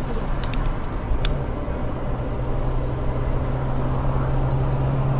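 Steady road noise inside a moving car's cabin, with a constant low engine hum; a couple of faint ticks about a second in.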